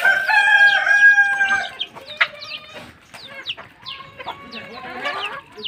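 A desi rooster crows once, a drawn-out call of just under two seconds right at the start and the loudest sound here. After it, chicks peep in short falling chirps and hens cluck.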